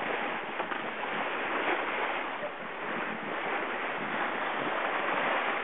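Sea water rushing along a sailing yacht at sea, with wind on the microphone: a steady, even rush that swells and eases a little.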